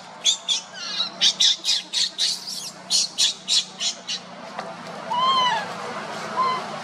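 Baby macaque squealing in rapid, high-pitched cries, about two or three a second, then a few longer, arching whimpers in the last couple of seconds.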